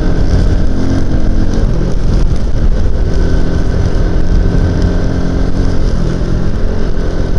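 Euro Marvel 130i motorcycle engine running steadily at cruising speed, under heavy wind rumble on the helmet-mounted action camera's microphone.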